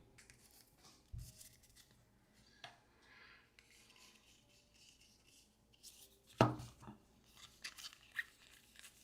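Quiet handling of trading cards and pack wrappers: faint rustles, slides and light taps, with one louder knock about six seconds in.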